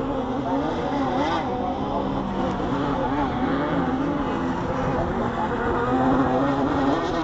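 Several RX150 rallycross buggy engines racing, their pitch rising and falling as the drivers rev, shift and lift. The engines overlap with no pause.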